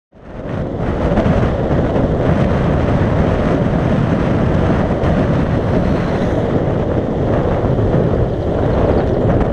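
Wind buffeting a GoPro's microphone as a road bike descends at speed: a loud, steady low rumble that fades in over the first second.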